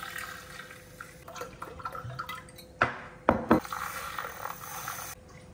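A drink being mixed in a glass with a handheld battery frother: liquid swishing, and three sharp clinks of the frother against the glass about three seconds in.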